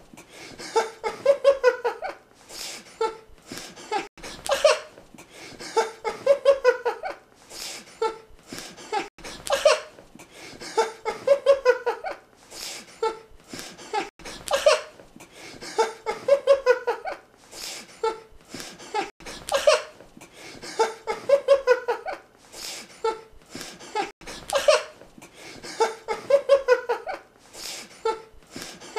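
A ticklish man laughing helplessly as his sides are tickled, in short bursts of quick pulses that come over and over, every second or two.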